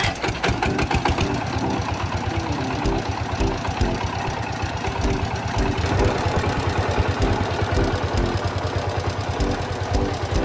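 Restored air compressor running, a fast steady low pulsing knock.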